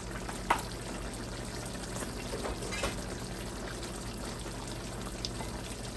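Chicken afritada stew simmering in a pan, a steady sizzle, with a single light click about half a second in.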